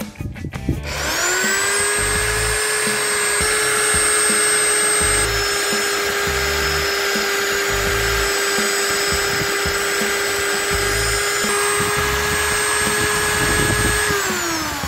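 Soviet-era corded electric drill mounted in a drill press stand, spinning up about a second in and running steadily as the bit bores into a wooden board, then winding down near the end.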